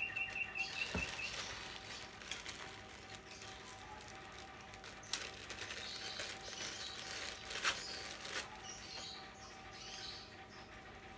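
Thin clear plastic bags rustling and crinkling as small action-camera mounts are taken out and handled, with sharp crackles about five and seven and a half seconds in. A bird chirps a quick run of high notes at the very start.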